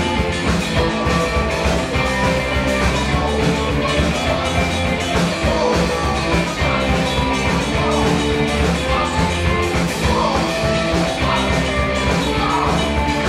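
Live rock band playing: two electric guitars, bass guitar and drum kit, loud and continuous.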